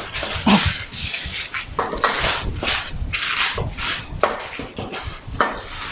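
Wooden rolling pin rolled back and forth over pastry dough between two sheets of parchment paper, the paper rustling and crinkling with each stroke in a run of short, uneven bursts.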